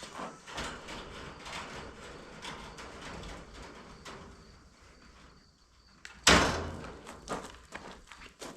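A roll of chicken wire being handled and unrolled: scattered light rattles and clicks, and one loud metallic clatter about six seconds in that rings off for about a second.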